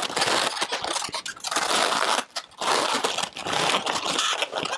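Inflated latex twisting balloons rubbing and scrunching against each other as they are squeezed and pressed by hand, settling the round eye balloon firmly into the balloon fish. The rubbing comes in dense stretches, broken by two brief pauses around the middle.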